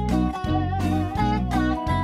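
Background music: a guitar-led tune with strummed or plucked strings over a steady bass, the notes changing about twice a second.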